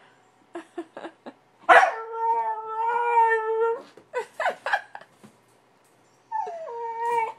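Husky puppy yipping and howling in protest, wanting out of its crate. There are a few short yips, then a long, steady howl starting a little under two seconds in, more short yips, and a shorter howl near the end that steps down in pitch.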